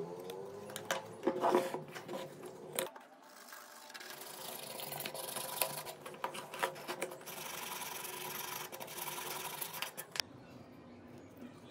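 A few light clicks of plastic phone parts being handled, then a toothbrush scrubbing a Samsung Galaxy phone's plastic frame: a steady hissy rubbing for about six seconds that stops suddenly near the end.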